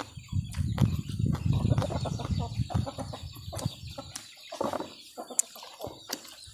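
Chickens clucking, over a low rumble with many short clicks that fades after about four seconds.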